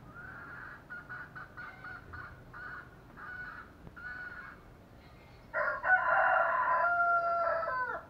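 Chickens: a run of short, repeated clucking calls, then a rooster crows loudly for about two and a half seconds, its crow dropping in pitch and breaking off at the end.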